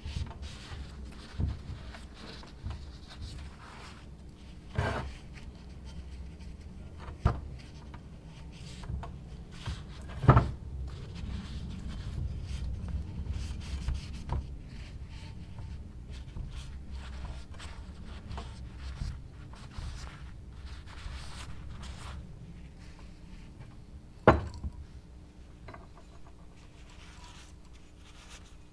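Hand work on the parts of a vintage meat grinder: steady rubbing and scraping, broken by a few sharp knocks, the loudest about ten seconds in and again near the end.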